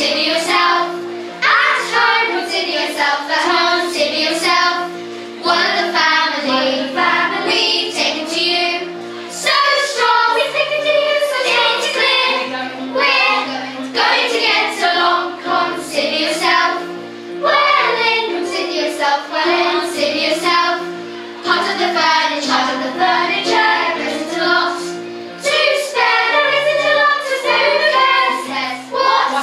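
Children's choir singing a song in unison over an instrumental accompaniment of steady, stepped bass and chord notes.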